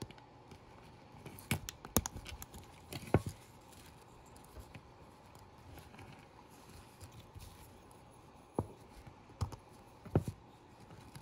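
Small, sharp plastic clicks and taps from a model locomotive's plastic bogie frame as its corner claws are pried loose with a pointed tool. A cluster of clicks comes about one and a half to three seconds in, and a few more near the end.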